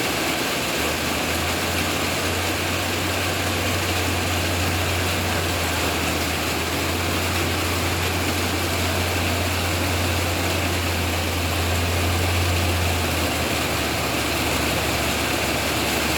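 Rain falling steadily, an even hiss, with a steady low hum that comes in about a second in and eases a little near the end.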